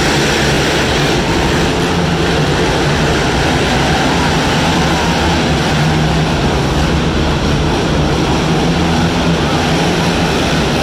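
A pack of quad ATVs racing together, their engines making one loud, steady drone that rises and falls a little in pitch as the riders work the throttle.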